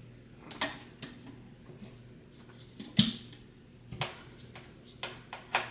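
A utensil knocking and clinking against a slow cooker's crock while the meat and seasoning are stirred, in several separate strikes about a second apart, the loudest about three seconds in.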